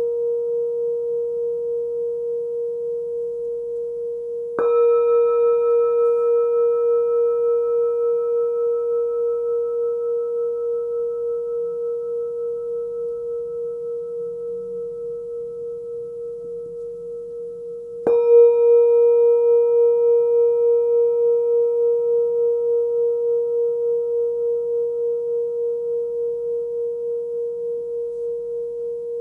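Small hand-forged singing bowl, about 11 cm across and pitched near 468 Hz, ringing with a steady high hum and fainter overtones above it. It is struck again about four and a half seconds in and once more near eighteen seconds. After each strike the tone fades slowly with a gentle pulsing wobble.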